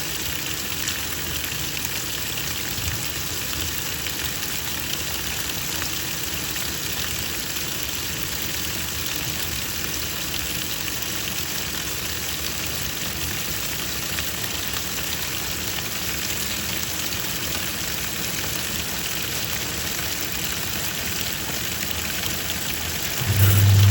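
Twin-tub washing machine: a steady hiss of water in the tub, and near the end the machine's motor starts with a loud low hum.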